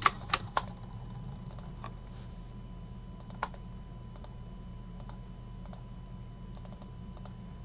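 Computer mouse and keyboard clicks: a few quick clicks at the start, then scattered single and paired clicks every second or so, over a low steady hum.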